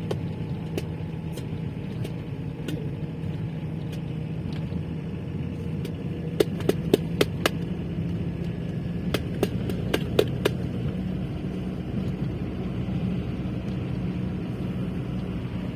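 Steady low hum of a running road vehicle, with a cluster of sharp clicks about six seconds in and another about nine to ten seconds in.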